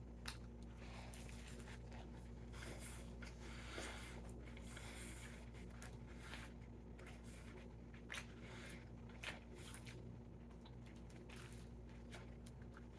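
Faint chewing and biting of a sandwich: scattered soft squishes and mouth clicks over a steady low hum.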